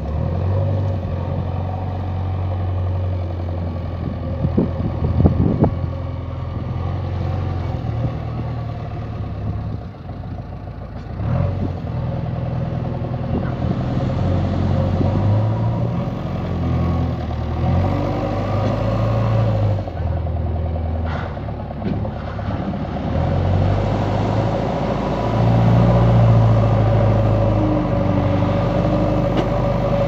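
JCB 3DX backhoe loader's diesel engine running and revving up and down under load as its front loader bucket works a pile of crushed stone, with a few sharp knocks about four to six seconds in.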